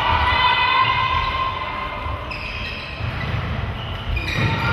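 Footfalls of players running on a sports-hall floor, low thuds throughout, under a long, steady high-pitched tone that breaks off about two seconds in and then starts again.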